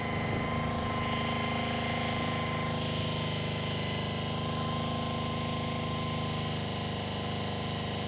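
Honda VFR400 NC24's V4 engine running steadily at a fast idle of about 3000 rpm, its carburettors out of balance while they are being synchronised.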